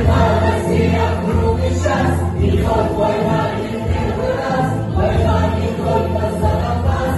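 A male lead singer and a mixed choir singing together through microphones over musical accompaniment with a strong, steady bass.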